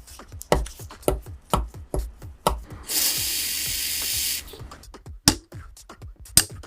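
Background music with a steady beat. Midway, a workshop tool lets out a loud, even hiss for about a second and a half, then stops abruptly.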